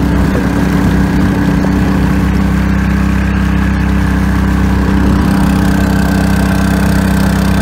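A small boat's engine running steadily at cruising speed, pushing a narrow wooden boat along, loud and close by.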